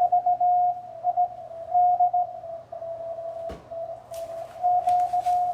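Morse code (CW) signal received on the 20 meter amateur band, heard through the transceiver as a steady mid-pitched tone keyed on and off in dots and dashes over faint band hiss. A few short crackles come in over the second half.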